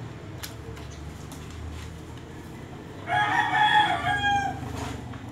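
A rooster crowing once, about three seconds in: one loud drawn-out call lasting about a second and a half.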